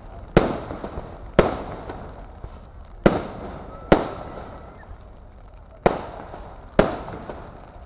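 Aerial fireworks bursting overhead: six sharp bangs at uneven intervals, each trailing off into a rolling echo.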